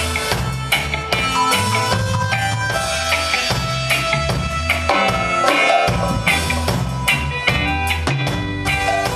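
Live reggae band playing: electric guitar, electric bass and drum kit over a steady beat, with held notes over a pulsing bass line.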